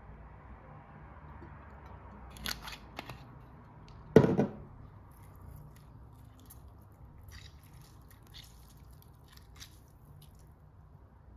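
Kitchen handling sounds: a couple of light clicks, then one louder knock about four seconds in, followed by soft scattered clicks and crackles as a lemon half is squeezed by hand over shredded red cabbage in a steel bowl.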